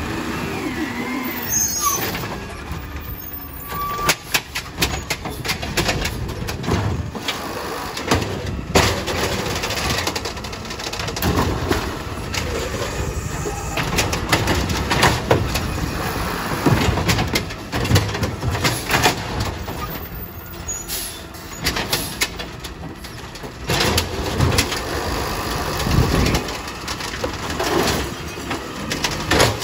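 Automated side-loader garbage truck at work: the diesel engine runs under load while the hydraulic arm lifts and dumps carts, with repeated clanks and bangs of the carts and trash dropping into the hopper.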